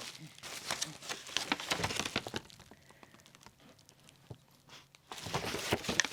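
Packaging being handled as a parcel is unwrapped: irregular crinkling and rustling, busiest in the first couple of seconds, a quieter lull, then more crinkling near the end.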